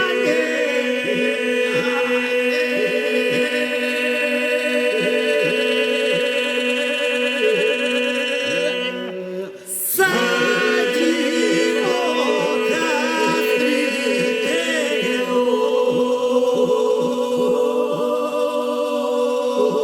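Unaccompanied Albanian folk polyphonic singing: a group of voices holds a steady drone while ornamented melody lines move above it. The singing breaks off briefly about nine seconds in and then resumes.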